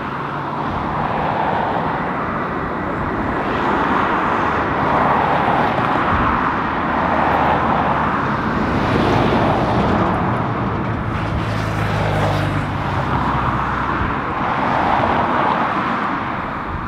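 Airbus A330 twin jet engines running at low thrust as the airliner taxis, a steady rushing engine noise with a low hum underneath that swells and fades every few seconds.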